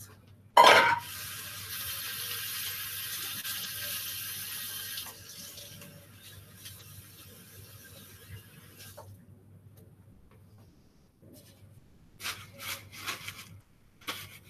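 Tap water running into a sink while hands are washed. It starts suddenly about half a second in, runs strongly for a few seconds, then runs more quietly until it shuts off about nine seconds in. A few short knocks follow near the end.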